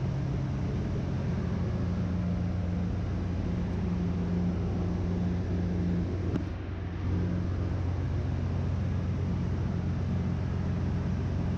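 Steady low drone of a ship's engine-room machinery, a hum of several steady low tones under an even rush of noise. A faint click and a short drop in level come about six and a half seconds in.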